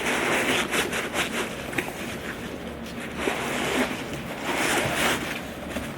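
Packaging rustling and crinkling as it is handled and pulled apart, in several bursts with small clicks.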